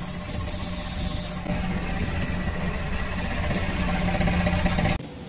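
Compressed-air spray gun hissing as it sprays paint onto a cast-metal fries cutter frame, stopping about a second and a half in. A steady low machine hum runs underneath and cuts off abruptly near the end.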